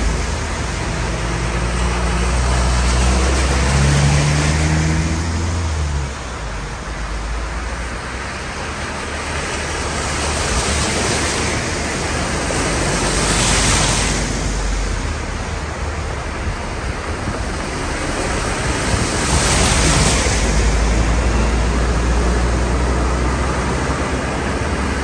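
Vehicles driving through floodwater on a road, their tyres throwing up rushing spray, with the low engine rumble of passing vans and a lorry. Two louder splashing surges come about halfway through and about two-thirds of the way in.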